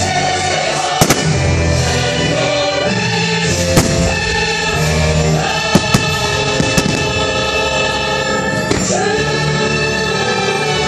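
Fireworks bursting in a string of sharp bangs over the show's music, in which a choir sings.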